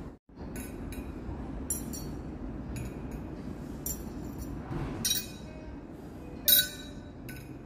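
Tableware on a laid restaurant table clinking: glass, china and cutlery knocked together in a string of light, ringing clinks at irregular intervals, the loudest about five and six and a half seconds in.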